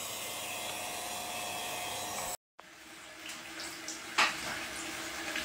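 Electric nail drill running on a fingernail, a steady whir with a faint steady hum, cut off suddenly after about two seconds. Then quieter room noise with a single brief knock near the end.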